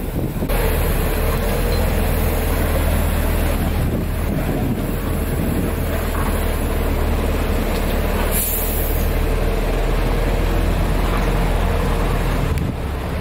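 Heavy-haul truck's diesel engine running steadily as it pulls a low-loader past, with a deep rumble. A short hiss of air about eight seconds in, like an air brake, and the sound drops off near the end.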